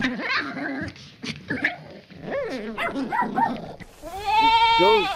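A dog gives a run of short barks and yips. About four seconds in, a goat bleats once, long and loud.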